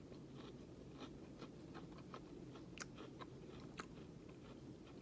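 A person chewing a crunchy granola-and-peanut-butter cup: faint, irregular crunches, a few a second.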